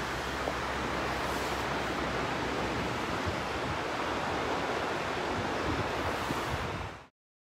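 Ocean surf washing onto a beach, a steady rush of breaking waves, with some wind buffeting the microphone. The sound cuts off suddenly near the end.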